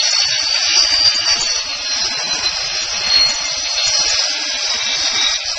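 Miter saw running with a high motor whine as its blade cuts a laminate floorboard to length; the whine drops a little in pitch about two seconds in.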